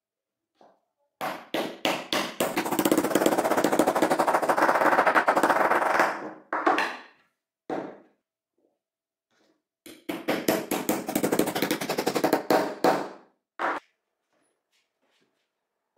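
Rapid, dense hammer taps driving steel ball bearings into holes bored in a wooden block, in two runs of about five and three and a half seconds, with a few single knocks around them.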